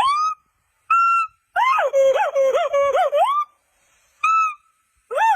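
Gibbon calling: clear whooping notes that sweep upward, with short pauses between them, and in the middle a run of about five quick rising-and-falling warbles lasting nearly two seconds.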